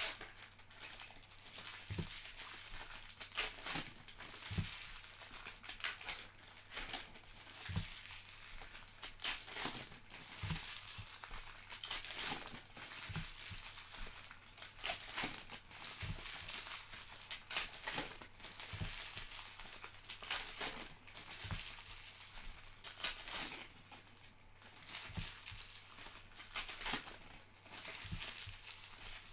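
Trading-card pack wrappers crinkling and tearing as packs are opened and cards handled, in irregular bursts of crackling, over a faint steady low hum.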